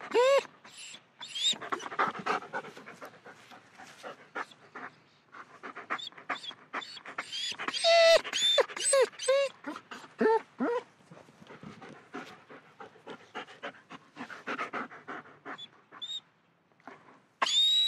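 German Shepherd panting rapidly, broken by short, high whines that rise and fall in pitch, with a cluster of them about halfway through. Near the end the panting stops briefly, then a loud whine starts and slides down in pitch.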